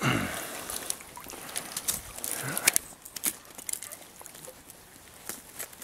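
Water splashing and dripping as a trapped muskrat is pulled out of the water, with scattered sharp clicks and snaps of handling.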